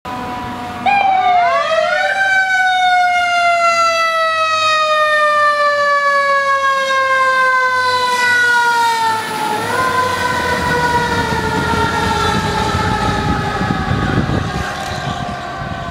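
Fire engine siren passing: a mechanical-style wail that winds up sharply about a second in, then falls slowly in pitch over the next several seconds, with a brief step back up near the middle before it keeps winding down. Low road and engine rumble from the passing truck rises in the second half.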